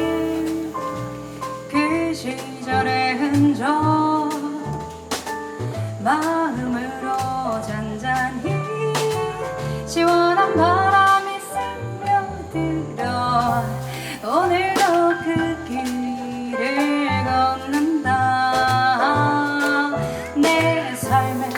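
Live jazz quartet playing: piano, upright double bass and drum kit with cymbals, under a sliding, sung melody line.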